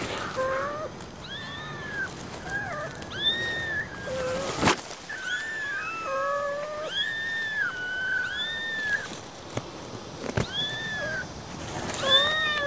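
Several four-week-old kittens mewing over and over in high-pitched, arching cries that often overlap. Two sharp knocks come about five seconds in and again near ten seconds.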